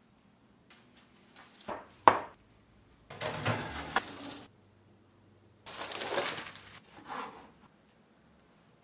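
Kitchen handling sounds from food preparation: two short knocks about two seconds in, the second one the loudest, then two noisy stretches of handling about a second long each and a smaller one after, over a faint low hum.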